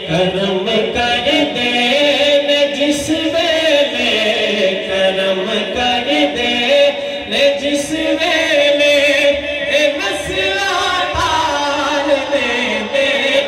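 A man singing a Punjabi naat into a microphone, drawing out long ornamented lines without clear words over a steady held note.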